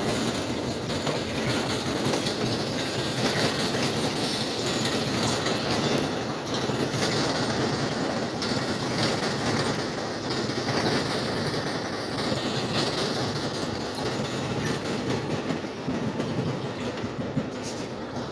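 A train passing close by: a steady rolling rumble with wheels clacking over the rail joints.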